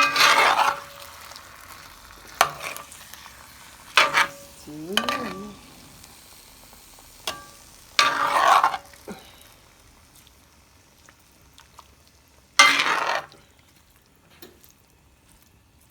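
Browned chicken with onions and tomatoes being stirred in a hot pot: short bursts of stirring and scraping every few seconds, with frying sizzle underneath.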